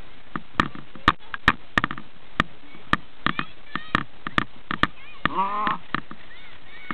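A string of sharp, irregular clicks and knocks, over a dozen in a few seconds, with a child's high shout about five seconds in.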